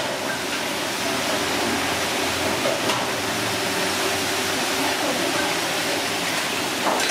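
Steady rushing hiss, with a faint steady hum underneath that stops near the end.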